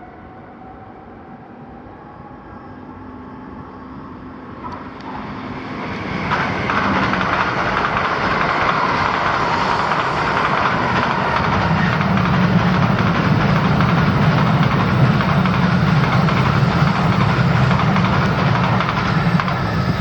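A train passing through the station without stopping: a rushing rail noise that grows from about four seconds in, is at full loudness by about six seconds, and holds steady from then on, with a deep rumble joining about eleven seconds in.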